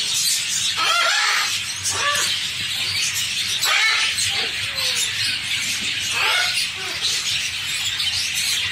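A flock of caged budgerigars chattering: a dense, continuous high twittering with louder single calls standing out every second or so.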